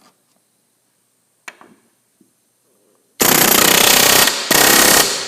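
Pneumatic air hammer fitted with a rivet tool, hammering rapidly in two short bursts of about a second each, setting a rivet. A small click comes before the bursts.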